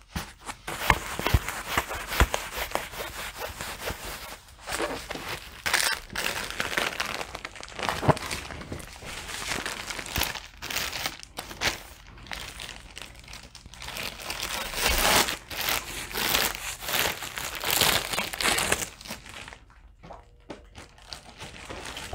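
Clear plastic packaging crinkling and rustling in irregular bursts as a rolled diamond painting canvas and its plastic sleeve are handled, quieter for a moment near the end.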